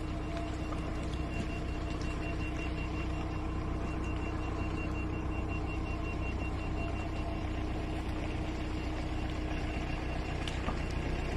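Vehicle engine running steadily: a low, even hum with a faint high whine through the middle few seconds.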